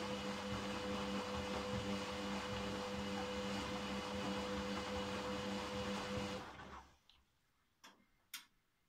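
Candy Grandó washing machine on a delicates wash: the motor turns the drum with a steady hum over the rush of the tumbling washload, then stops about seven seconds in. Two short clicks follow.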